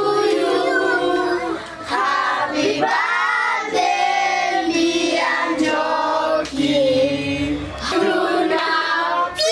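Children singing together, a song of long held notes with short breaks between phrases.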